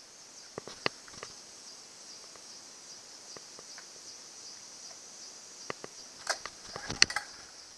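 Steady high-pitched buzz of insects, with a few scattered clicks and knocks from hands handling the outboard motor's starter and fittings. The sharpest click comes near the end.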